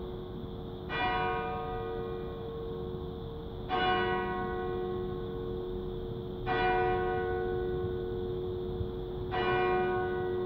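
A single Norwich Cathedral church bell struck four times at a slow, even pace, about three seconds apart, on the same note each time. Each stroke rings on into a long hum under the next.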